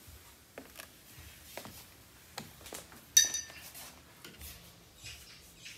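Small taps and scrapes of painting gear and crockery on a wooden table, with one sharp ringing clink of crockery about three seconds in, the loudest sound.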